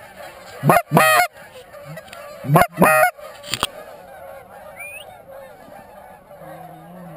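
Geese honking: two loud double honks about two seconds apart, over steady background chatter from a flock of geese.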